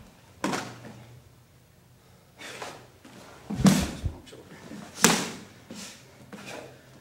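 A run of about six sharp slaps and thuds from a karate sparring exchange: arm blocks and strikes meeting, and feet stepping and stamping on a wooden dojo floor. The loudest and heaviest hit comes about halfway through.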